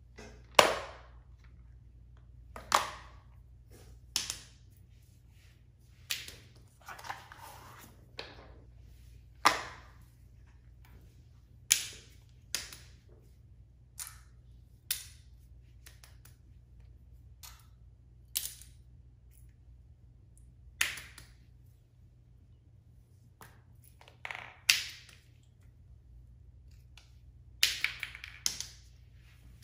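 A string of short, sharp taps and clacks as fidget toys are set down one by one on a foam board, a second or two apart, with a quicker run of several near the end.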